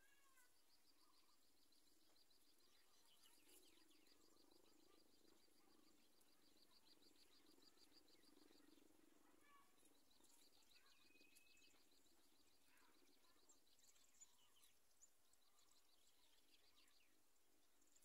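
Near silence: faint outdoor ambience with a faint high, rapid trill that stops and starts twice, and a faint low hum in the middle.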